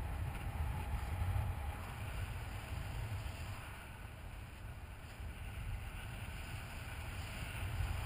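Airflow rushing over the microphone of a paraglider pilot's camera in flight: a steady low rumble with a lighter airy rush, swelling and easing slightly.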